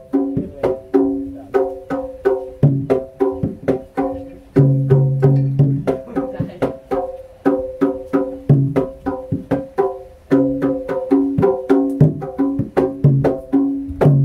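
Javanese jaranan dance music: a fast pattern of sharp drum and wood strokes under ringing, pitched struck notes, with a low note held now and then. The music stops abruptly at the end.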